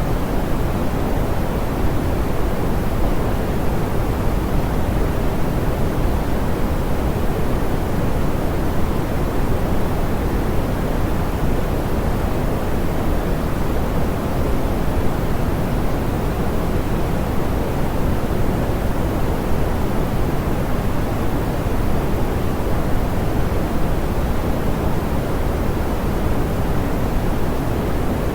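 Steady, softened pink noise: an even hiss weighted toward the low end, with the highs rolled off, unchanging throughout.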